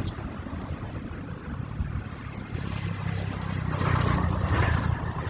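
A motor vehicle's engine running steadily with road and wind noise, swelling a little about four seconds in.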